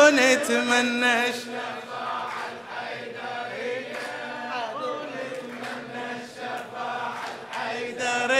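A lead male chanter sings a phrase, then a crowd of men sings a religious refrain back together in unison, quieter and less distinct than the lead voice.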